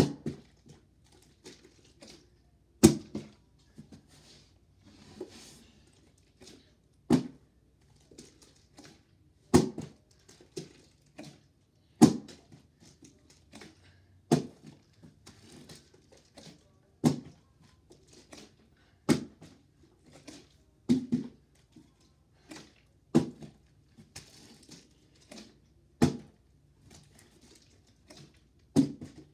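Plastic water bottle being flipped over and over, landing on a carpeted floor with a dull thud every two or three seconds.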